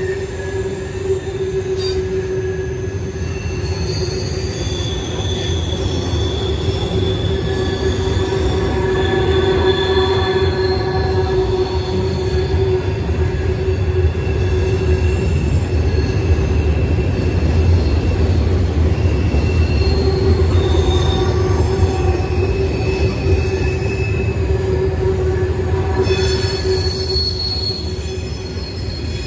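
Norfolk Southern train cars rolling past, a steady low rumble with wheels squealing in several high pitches that come and go.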